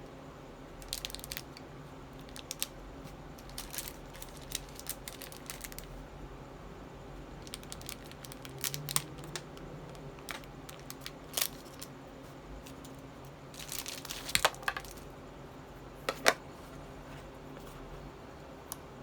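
Packaging and small items being handled by hand: scattered small clicks and taps with short bursts of crinkling and tearing, a denser run of clicks about two-thirds of the way through and one sharp click a little later.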